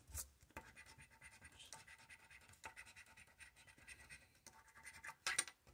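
Faint, intermittent scratching as the coating is rubbed off a paper scratch-off lottery ticket, with a couple of louder strokes near the end.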